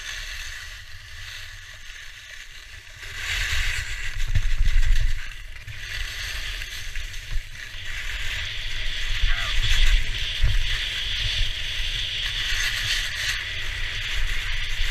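Skis sliding and scraping over packed snow, a hiss that swells about three seconds in and again through the second half as the turns bite harder, over a low rumble of wind buffeting the action-camera microphone.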